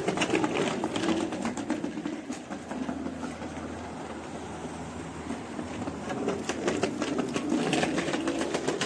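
Child's bicycle with training wheels rolling over a tiled floor: a fast, continuous rattling clatter from the wheels and frame.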